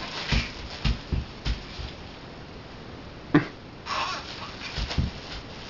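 Bubble wrap being pressed and crinkled by a small child: a few dull thumps, plastic crinkling, and one sharp pop about three and a half seconds in.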